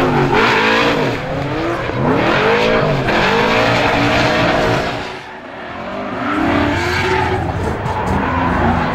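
Ford Mustang V8 drift car's engine revving up and down in repeated surges about once a second while its rear tyres spin and squeal in a drift. The sound drops briefly about five seconds in, then picks up again.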